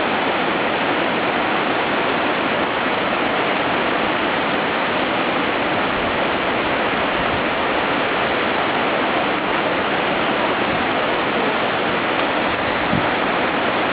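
Whitewater rapid rushing over boulders: a steady, even noise of churning river water.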